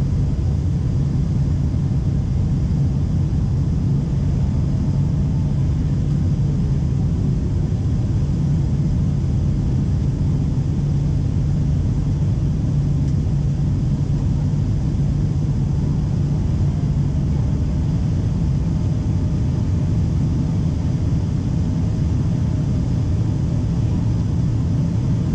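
Jet airliner cabin noise during the climb after takeoff: a steady low rumble of the engines and airflow, with a constant low hum, heard from a window seat over the wing.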